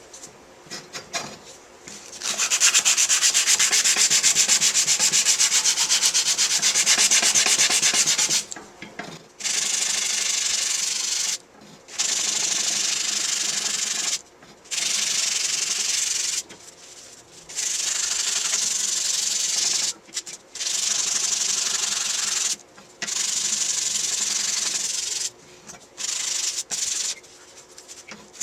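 Scraping, abrasive rubbing in repeated runs: one long stretch of about six seconds, then a series of runs of two to three seconds each, broken by short pauses.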